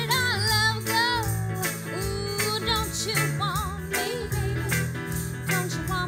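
Live band music with women's voices singing over a steady beat.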